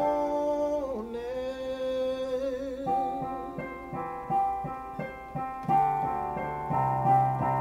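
A man's singing voice holds one long wavering note over chords on an electronic keyboard. The voice fades out about three seconds in, and the keyboard carries on with chords struck in a steady rhythm.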